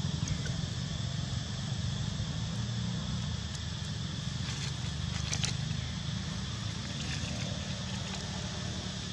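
Steady outdoor background noise: a low rumble with a fainter high steady hum, and a few faint clicks a little past the middle.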